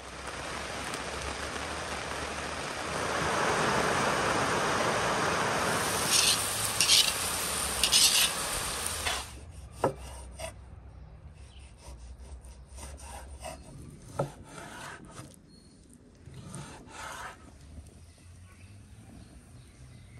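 Steady rain falling for about the first nine seconds, with a few brief, louder bursts near its end. Then a knife slicing raw beef heart on a wooden cutting board, with a couple of sharp knocks of the blade on the board.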